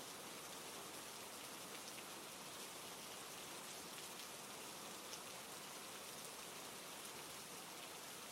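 Steady rain falling on a forest, an even hiss with faint scattered drop ticks.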